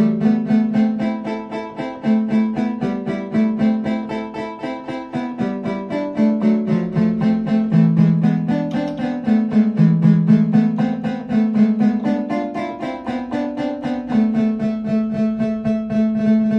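KORG Micropreset analog synthesizer playing a melody with a warm keyboard tone: quick, evenly repeated notes, about five or six a second, over held low notes that change every second or two.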